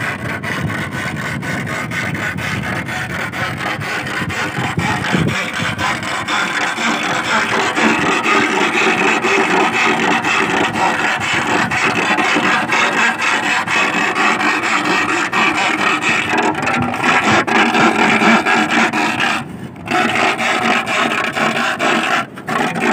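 Iron bar being rubbed and rasped in a steady, rapid scraping. This is the noise used to drive sasing sea worms up out of their burrows in the sand. The scraping breaks off briefly twice near the end.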